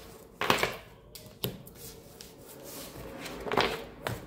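Tarot cards being handled: a rustling swipe about half a second in, a sharp tap about a second later, and another longer rustle near the end.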